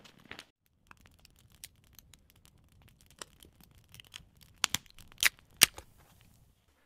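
Wood fire crackling: a dense run of small snapping ticks over a faint low rumble, with three loud sharp pops close together about five seconds in.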